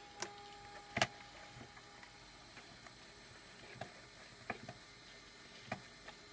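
A handful of sharp clicks and taps, the loudest about a second in and the rest spread over the next five seconds, over the faint steady hum of an old Pentium PC running.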